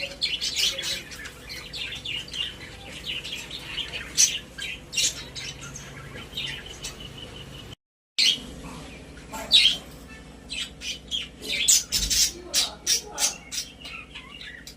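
Pet budgerigars chirping and chattering in rapid short calls, with several birds overlapping. The sound cuts out completely for about half a second around eight seconds in.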